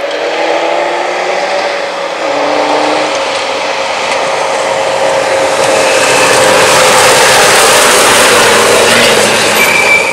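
Off-road rally car's engine running hard as it speeds down a gravel track and passes close by, its steady engine note joined by a rising rush of tyre and gravel noise that is loudest as it goes past, near the end.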